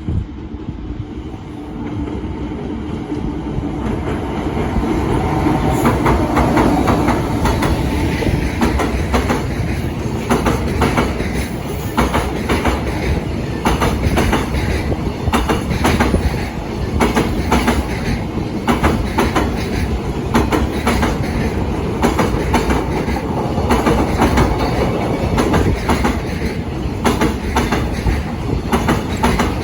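Container freight train crossing a railway bridge at a reduced 45 km/h. The wagons' wheels clack over the rail joints again and again over a heavy rumble, which builds over the first few seconds as the train draws near and then holds steady.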